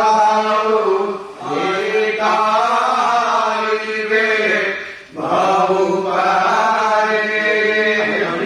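A man's voice chanting prayers in long, held, sing-song phrases, pausing briefly for breath twice, about a second and a half and five seconds in.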